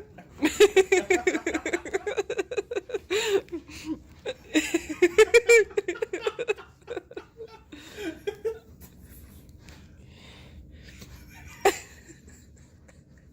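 A person laughing hard in quick pulses of loud laughter, which die down after about six seconds, with a single sharp click near the end.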